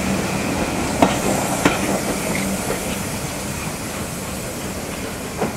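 Coaches of a steam-hauled train rolling past, a steady rumble with a few sharp clicks as the wheels run over rail joints.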